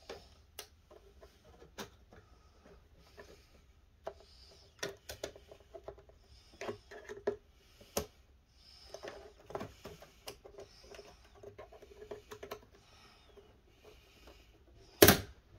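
Plastic snap-fit clips of an Xbox Series X's casing being pried loose by hand: scattered small clicks, scrapes and creaks, then one loud sharp snap near the end as a clip pops free.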